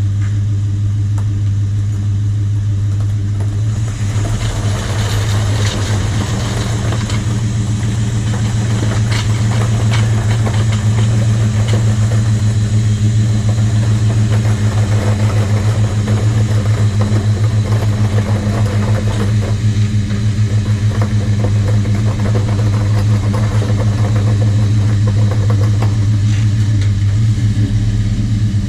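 Pressure washer running with a steady motor hum; about four seconds in, the hissing spray starts and keeps going.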